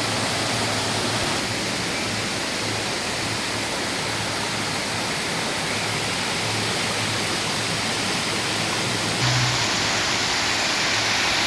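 Waterfall in heavy seasonal flow: a steady, dense rush of falling and running water, slightly louder from about nine seconds in.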